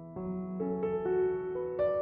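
Background piano music, with new notes and chords struck every half second or so.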